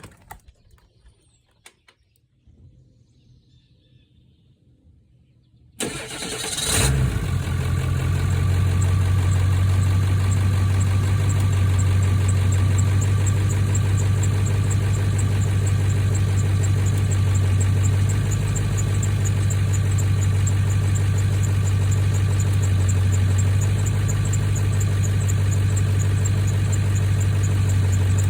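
A 2000 Ford F-250's 7.3L Powerstroke V8 turbodiesel is started about six seconds in, after a few faint clicks. It catches at once and settles into a steady, loud idle with a deep even hum.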